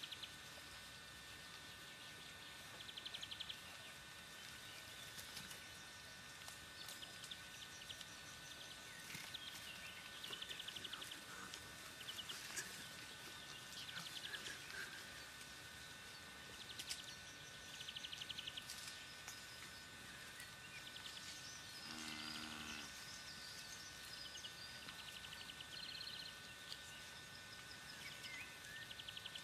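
Faint pasture ambience: short buzzy trills recur every one to three seconds over a steady faint high hum. About three-quarters of the way through comes one brief pitched animal call of about half a second.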